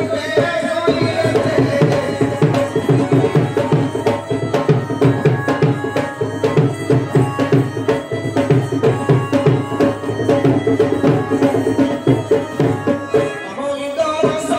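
Dhol, a two-headed barrel drum, played by hand in a fast, dense, steady rhythm for a danda nacha folk dance. A held melody line comes in again near the end.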